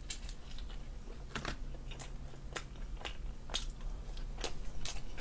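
Close-miked chewing of a slice of pizza: irregular wet mouth clicks and light crunches of the crust, roughly one every half second.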